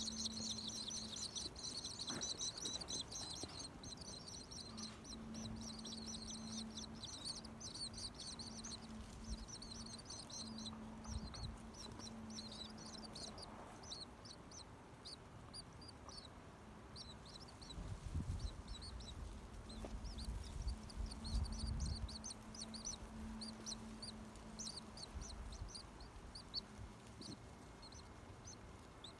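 Nestling birds cheeping in the nest: a dense stream of short, high, thin peeps that thins out to scattered calls after about ten seconds.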